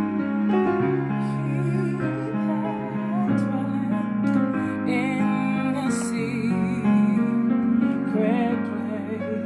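A gospel song played on a digital keyboard: slow, long-held chords, with a woman singing a few phrases along with vibrato.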